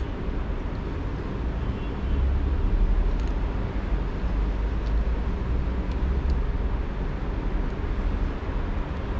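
Steady low outdoor background rumble, swelling for a couple of seconds about two seconds in, with a few faint small clicks from the scooter's motor-wire connectors being handled and plugged together.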